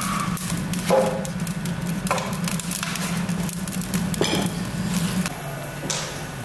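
Scattered sharp knocks and clinks, a few of them ringing briefly, over a steady low hum that stops about five seconds in.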